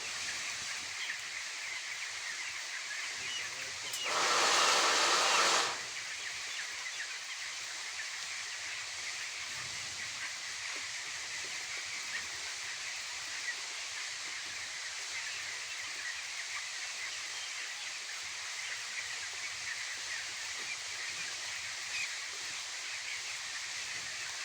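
A shed full of 17-day-old broiler chicks cheeping continuously in a dense, overlapping chorus. About four seconds in, a loud hiss of noise lasts under two seconds over the top of it.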